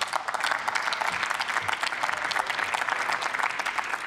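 Applause from members of parliament after a speech ends: many hands clapping in a steady, dense patter.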